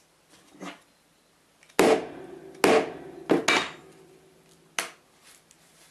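A plastic hammer striking the back of a craft knife blade laid on a sheet of Lexan polycarbonate, scoring the outline of a lure lip: five sharp knocks over about three seconds, the middle ones close together, each followed by a brief ring from the blade.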